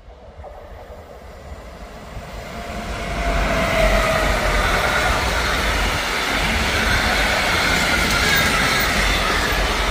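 Electric freight train, a Siemens Vectron locomotive hauling container wagons, approaching and passing close by. Its noise grows over the first three seconds, then holds as a loud, steady rolling of wheels on rails as the wagons go by.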